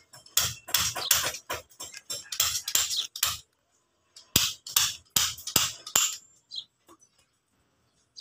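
Repeated hammer blows at about three a second, stopping about three seconds in and starting again a second later for a shorter run.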